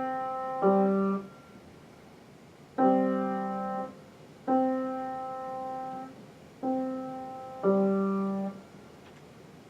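Acoustic piano played slowly by a beginner's left hand: about six low notes, each struck and held for roughly a second as it fades, with short gaps between them.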